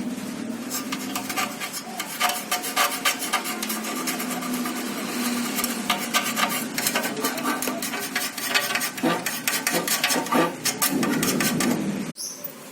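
Rapid, irregular hand scraping strokes against a hard surface, cutting off abruptly near the end.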